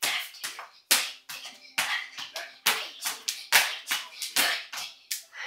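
Skipping rope slapping the floor about once a second, with lighter taps between, as a child jumps rope.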